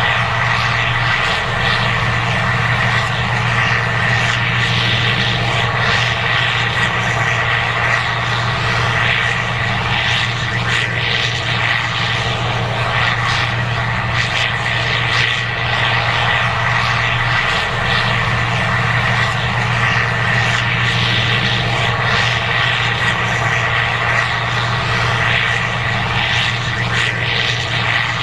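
Case IH 2188 Axial-Flow combine running steadily while harvesting corn: a constant engine drone with a thin steady whine above it.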